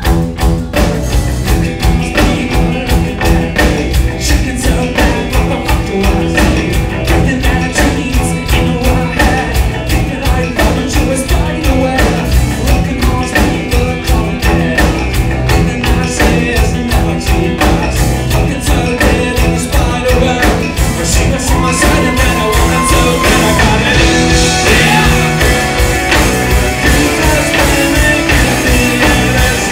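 A rock band playing, driven by a steady, fast drum beat.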